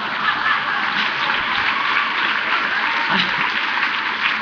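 Large audience applauding, a dense, steady clapping, with a few voices from the crowd about three seconds in.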